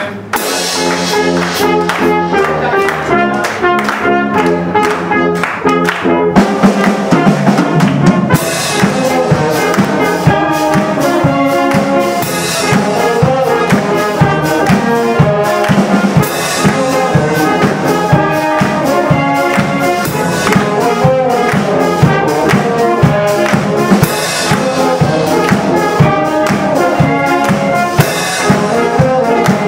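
Wind band playing live, brass and clarinet together. Held chords open it, then a drum kit comes in with a steady beat about six seconds in and the band plays on in full.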